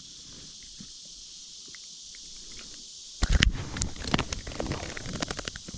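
A steady high insect drone. From about three seconds in comes a quick, irregular run of knocks, clicks and low thumps of handling on a kayak.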